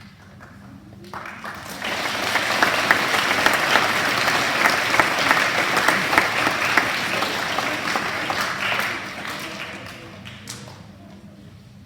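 Audience applauding: the clapping starts about a second in, swells, and fades away near the end.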